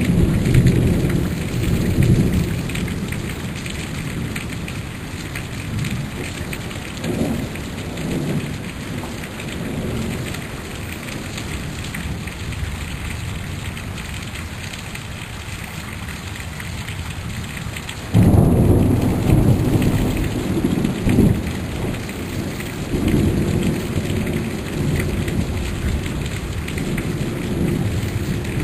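Heavy rain pouring steadily, with thunder rumbling low in waves. About two-thirds of the way through a louder rumble begins suddenly and rolls on.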